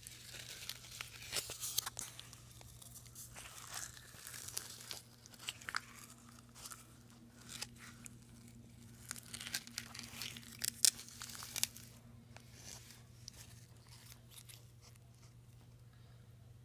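A flat stick stirring a can of partly frozen, lumpy paint, making irregular crunching and scraping clicks as the icy clumps are worked. The clicks come thickly for about twelve seconds, then thin out, over a low steady hum.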